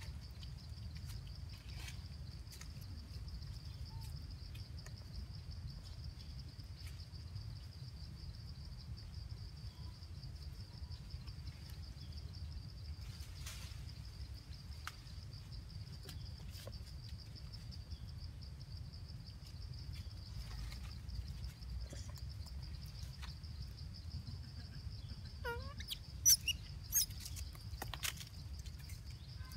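Forest ambience: a steady high-pitched insect drone over a low rumble. Near the end come a few short, sharp, high-pitched animal calls.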